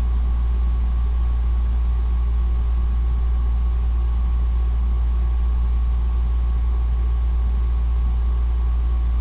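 Steady low background hum with a faint hiss.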